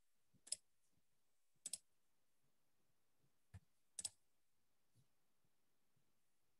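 A handful of faint computer clicks against near silence, two of them quick double clicks, spread over a few seconds.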